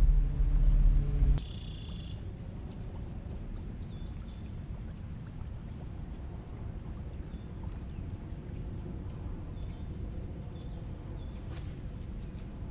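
Quiet outdoor lake ambience with faint, scattered bird chirps, following a loud steady low hum that cuts off abruptly about a second and a half in.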